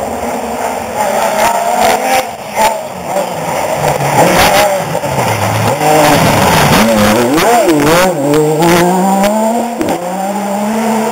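Peugeot-Cosworth rally car at full stage pace on gravel, with a few sharp cracks as it nears. The engine revs rise and fall through gear changes, wobble as it slides through the corner, then climb again as it accelerates away.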